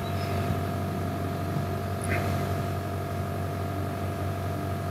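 Steady background hum made of several fixed tones, like electrical or equipment drone picked up by the microphone, with a faint click about two seconds in.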